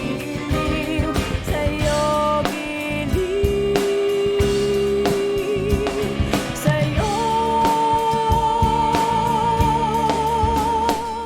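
A Tagalog pop love song with a band and drums, the singer holding a long note about three seconds in and then a higher long note with vibrato from about seven seconds in.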